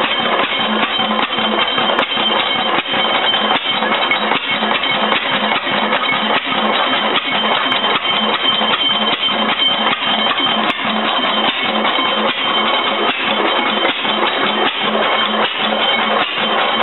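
1904 Deutz vertical Otto-cycle single-cylinder 4 hp engine running steadily, with an even beat of about two to three firing strokes a second over a continuous mechanical clatter. The engine has just been put back together and is not yet tuned up.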